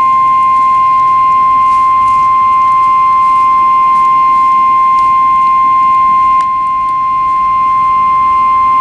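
Weather Radio Canada's 1050 Hz warning alarm tone: one loud, steady, unbroken tone. It is sent in the monthly test to set off the alarms of alert-equipped weather radios.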